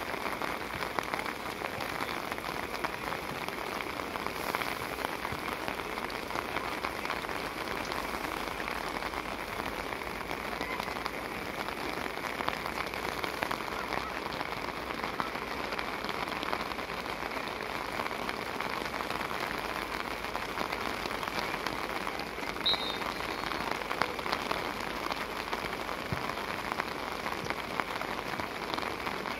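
Steady rain falling on an umbrella close by, a continuous hiss thick with fine drop ticks.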